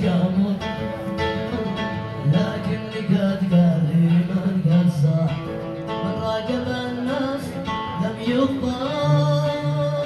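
Background music: a song with a singing voice over a plucked string instrument.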